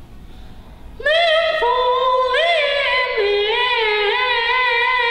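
A high voice singing a long, drawn-out Peking Opera phrase, starting about a second in: held notes that waver with vibrato and slide between pitches.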